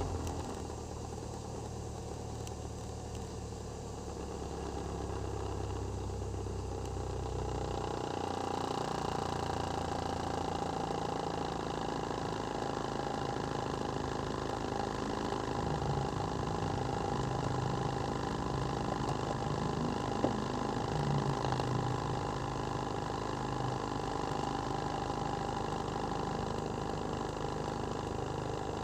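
2008 Toyota Vios 2NZ four-cylinder engine idling steadily after a rev, test-run after wiring repairs for a misfire; its idle note shifts about eight seconds in. A single brief click near the two-thirds mark.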